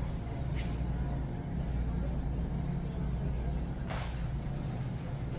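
Steady low mechanical hum of a store's background, with two brief hissy rustles, the stronger one about four seconds in.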